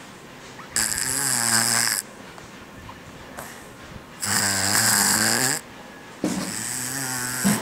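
Toddler snoring heavily: three long snores, each about a second and a half and roughly three seconds apart, with a low buzzing tone under a hiss.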